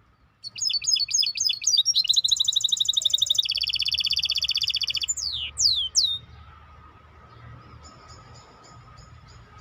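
Songbird singing: a run of quick chirps, then a fast rattling trill held for about three seconds, then a few falling whistles about five to six seconds in. Fainter chirps repeat near the end.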